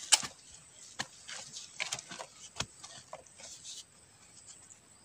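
Sharp knocks and scrapes of a long-handled digging blade chopping into hard soil, with crumbly hisses of loosened earth, while digging out a buried bamboo shoot. The strikes come about a second apart, the first the loudest, and they fade from about four seconds in.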